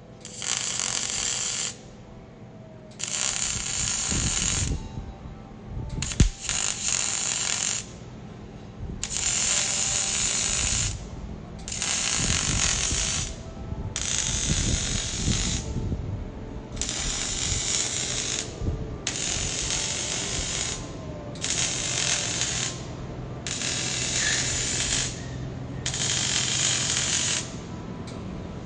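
MIG welder crackling in about eleven short runs of one to two seconds each, with brief pauses between, as the exhaust pipe joints at the mufflers are welded.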